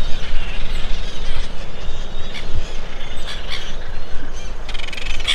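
Wind rumbling on the microphone, with birds chirping faintly and a few short crunches of footsteps on sand. A short buzzing trill comes near the end.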